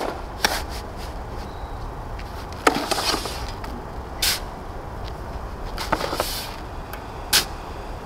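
Steel shovel digging into a pile of sand and tipping it into a plastic bucket: several short scrapes and knocks, a second or two apart.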